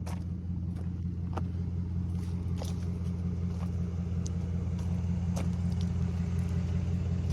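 Vehicle engine idling steadily, a low even hum, with a few faint ticks over it.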